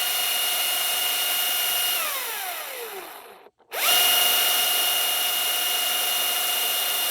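Husqvarna 540i XP battery chainsaw running free with no load, a steady high whine from its electric motor and chain, to push cooling air through the motor after hard cutting. The trigger is let go about 2 s in, the whine falls away to a stop, and then it spins straight back up near the 4-second mark and runs steady again.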